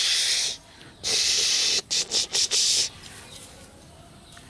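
A person hissing sharply at a puppy to scold it: a long hiss, a second one, then several short quick hisses, a correction for urinating indoors.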